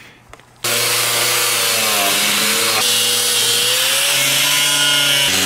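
DeWalt 5-inch angle grinder switching on about half a second in and cutting through a stock UTV exhaust muffler, its steady whine sagging and rising in pitch as the disc bites into the metal.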